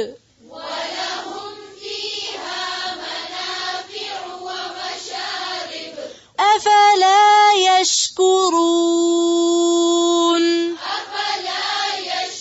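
A woman's voice chanting melodically in drawn-out phrases with gliding pitch, holding one long steady note about eight seconds in. The first half is softer and smeared, like an echoing or choir-like vocal.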